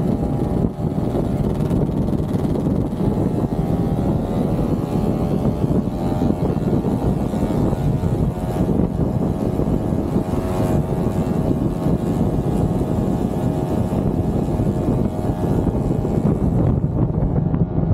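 Motorcycle engine running steadily while riding, with road and wind noise.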